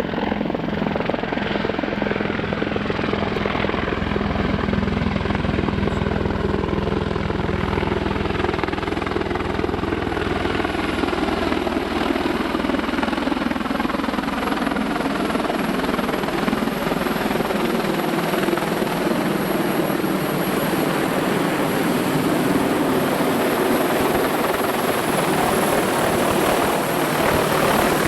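Mi-28 attack helicopter's main rotor and twin turboshaft engines running close by, with blade whistle and a thin high turbine whine over the rotor noise. The deep rotor beat fades away about halfway through while the higher blade and engine sound carries on.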